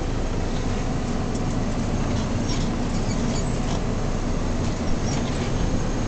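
Steady engine and road noise heard inside a passenger van's cabin while driving, with short high squeaks here and there.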